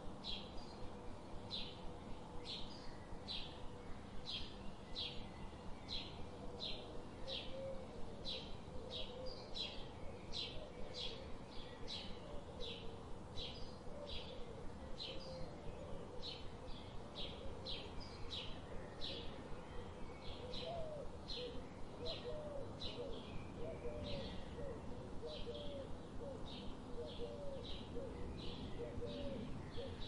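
Rainforest animal calls: a short, high chirp repeats evenly about twice a second throughout. Lower warbling calls join in, growing more frequent about two-thirds of the way through.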